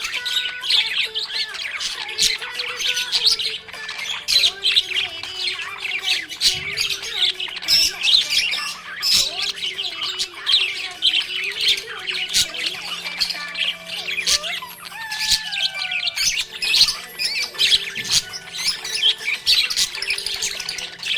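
Budgerigars chirping and squawking in a dense, unbroken stream of quick high chirps.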